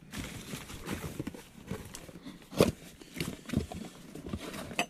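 Plastic bags and crumpled packing paper crinkling and rustling as hands dig through a cardboard box, with a sharp crunch about two and a half seconds in.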